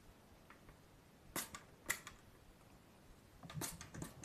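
Hand sounds close to the microphone: a few short, sharp crackles, two about half a second apart and a small cluster near the end.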